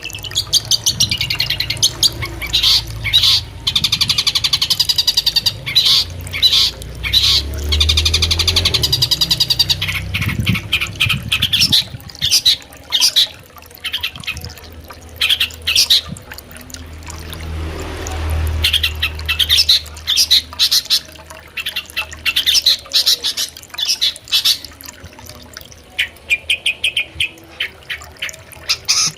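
Long-tailed shrike (cendet) singing in runs of rapid, harsh chattering calls broken by short pauses, over the steady sound of a flowing river.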